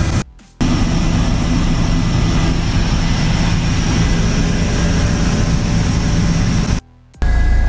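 Steady engine drone heard inside a small aircraft's cabin in flight. It breaks off twice for a split second.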